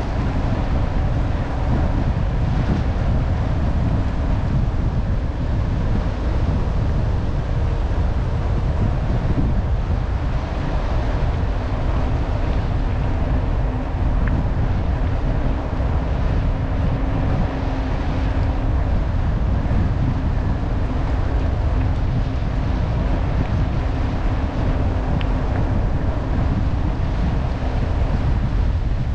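Steady wind rumble on the microphone of a camera riding on a moving mountain bike, with the hiss of tyres rolling over a gravel path.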